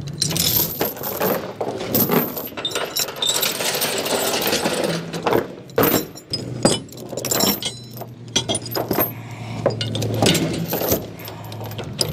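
Steel tie-down chain rattling and clinking in irregular bursts as it is handled, pulled through a D-ring and dragged across a wooden trailer deck.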